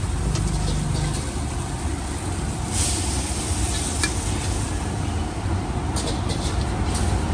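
Steady low rumble of road traffic, with a brief hiss about three seconds in.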